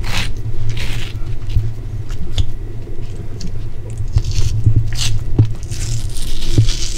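Thin skin being peeled by hand off a salt-and-vinegar-cured chub mackerel fillet: soft tearing and rubbing with scattered small clicks as the fingers work along the fish on the board, over a steady low hum.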